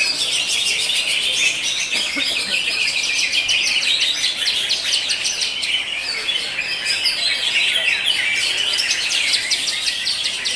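Cucak hijau (green leafbirds) singing: an unbroken stream of rapid, overlapping chirps and trilled notes.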